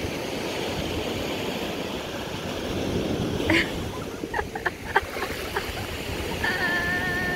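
Small waves washing on the shore, with wind on the microphone. A few short knocks come around the middle, and a brief held high-pitched call comes near the end.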